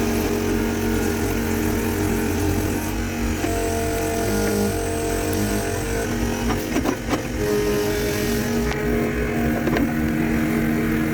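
Engine of a machine-driven post-hole auger running under load while it bores into ground full of roots. Its pitch shifts up and down a few times, with a short cluster of knocks about seven seconds in.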